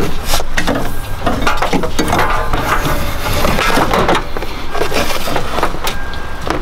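Electrical wire being fished down through a truck's engine bay: irregular rustling, scraping and clattering as the cable and hands rub against plastic and metal parts.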